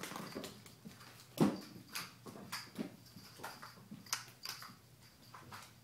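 Kittens jumping and landing on a hardwood floor: irregular paw thumps and scampering taps, with one heavier thud about one and a half seconds in.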